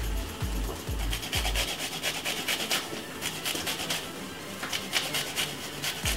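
Garlic clove grated on a fine-toothed rasp grater: a run of quick, repeated rasping strokes.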